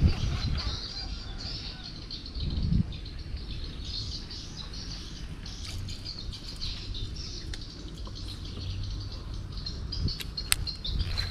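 Birds chirping and insects calling steadily, over a low rumble of wind on the microphone; a couple of sharp ticks near the end.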